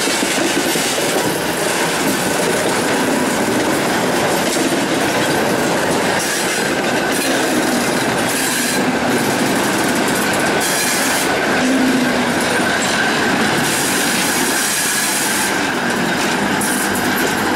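Freight wagons rolling slowly past on the rails, their wheels squealing with a steady high tone over the rumble and clatter of the train. Near the end the ChME3 shunting diesel locomotive that is moving the train comes alongside.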